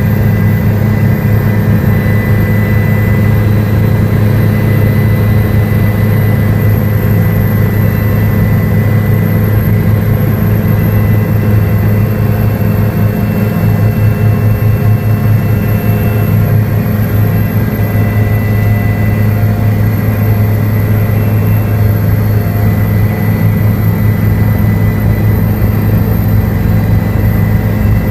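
Helicopter turbine engine and rotor heard on board in flight: a loud, steady low drone with a thin, constant high whine.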